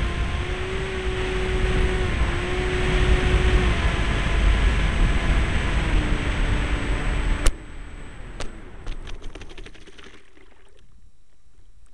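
Onboard sound of a radio-controlled model seaplane: the propeller motor running with wind rushing past, its pitch stepping up and down with the throttle. About seven and a half seconds in the motor cuts off suddenly, leaving a much quieter stretch with scattered light ticks as the plane comes down to the water.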